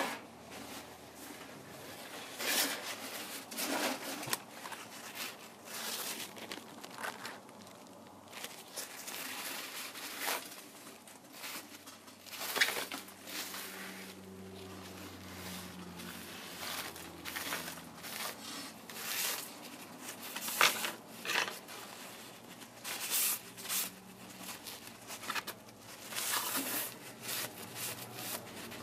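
Irregular crinkling, scraping and clicking of hands-on work on a Kindle Fire tablet during a screen repair, in short uneven strokes every second or so.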